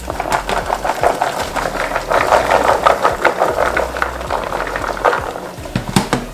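Sprouted chickpeas being poured into a colander: a dense, continuous rattle of many small hard beans, swelling in the middle and thinning out near the end.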